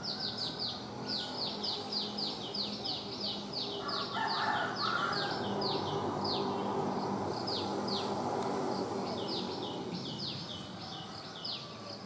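Sooty-headed bulbuls calling: a fast series of short, high, down-slurred notes, about three or four a second, with a short break about two-thirds through. Fainter, higher chirps from other birds sound underneath.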